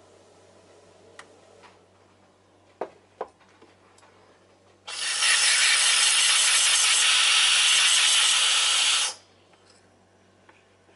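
Gaggia Gran Prestige espresso machine's panarello steam wand purging: a loud, steady hiss of steam for about four seconds that cuts off abruptly, clearing the wand after frothing milk. Before it, two sharp knocks.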